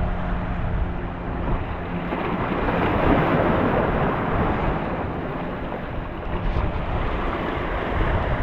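Sea waves washing and splashing against the boulders of a rock breakwater, with wind buffeting the microphone; the surge swells to its loudest about three seconds in.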